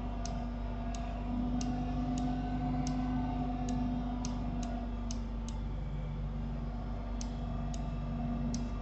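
Light sharp clicks, about a dozen at uneven intervals, over a steady low electrical hum.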